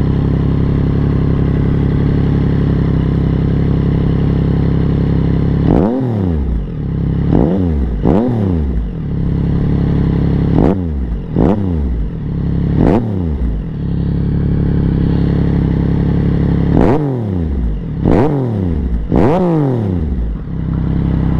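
2022 Yamaha XSR900's 890 cc inline-three engine, breathing through an M4 full exhaust, idling steadily and then rev-bombed from about six seconds in: three sets of three quick throttle blips, each rising sharply in pitch and dropping straight back to idle.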